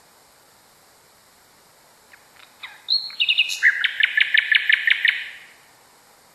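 A nightingale sings one song phrase. A few soft notes lead into clear high notes, then a loud, rapid trill of repeated notes at about six a second that breaks off after about a second and a half. A steady recording hiss runs underneath.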